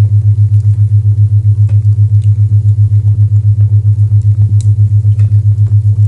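A loud, low isochronic tone, a deep steady hum pulsing on and off about eight times a second, over faint crackling from a fireplace.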